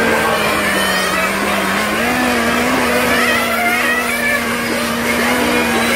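Several nitro-engined radio-controlled cars racing, their small glow engines whining at high pitch, the pitches wandering up and down as they run round the track.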